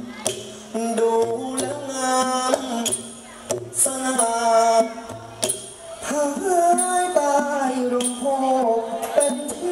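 A likay actor singing long melodic phrases through a handheld microphone and PA, with music behind him.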